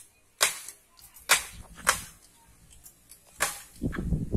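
A machete chopping into bamboo stems: four sharp, cracking blows at uneven spacing, followed near the end by low rustling.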